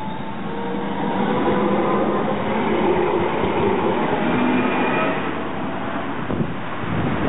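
Low-floor electric tram passing close by on grass-covered track: wheels rolling on the rails under a faint whine from its electric drive, growing louder about a second in as it draws alongside.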